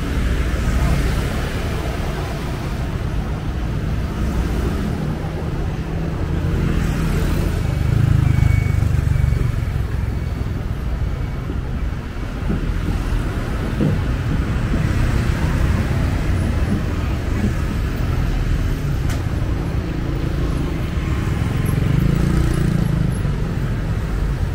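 City street traffic: motorbikes and cars running past, with louder swells as vehicles pass about a third of the way in and again near the end.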